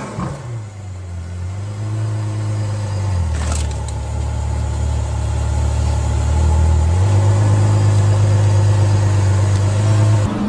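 Ferrari F12berlinetta's V12 running at low revs while the car manoeuvres at a wall, its deep note shifting about three seconds in and again about seven seconds in, a little louder from then. A brief click about three and a half seconds in.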